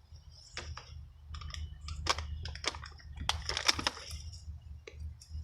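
Irregular crunching and crackling handling noises as lettuce seedlings are eased out and planted into crumbly soil, densest in the middle.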